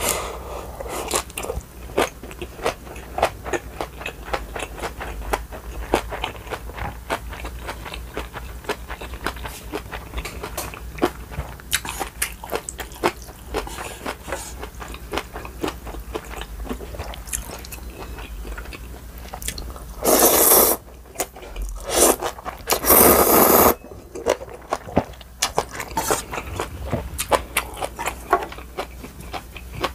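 Close-up eating sounds: crisp chewing and crunching of kimchi, rice and ramen, with many small wet clicks from the mouth. About twenty seconds in and again about three seconds later come two loud, noisy slurps of ramen noodles and broth, the second one longer.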